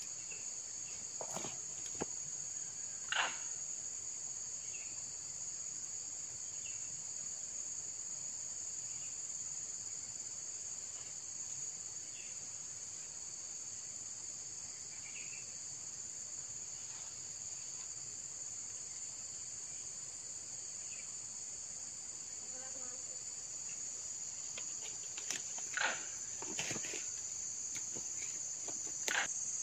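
Steady, high-pitched insect chorus, like crickets, holding constant throughout, with a few brief clicks and knocks about three seconds in and again near the end.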